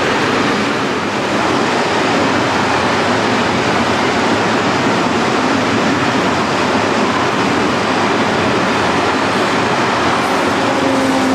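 Freight train of hopper wagons rolling past close by: a steady, loud noise of wheels on the rails. Near the end a whine that slowly falls in pitch joins in.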